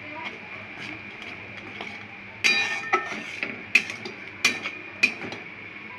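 A utensil stirring gravy in a cooking pan, knocking and clinking against the pan several times in the second half, over a faint steady high hum.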